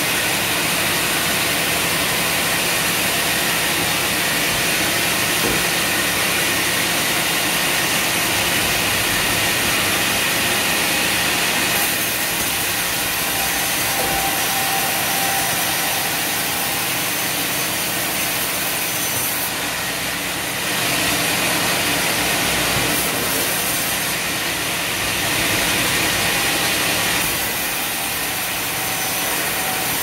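Large sawmill band saw running steadily and cutting lengthwise through a long timber board. The tone shifts a few times as the cut goes on.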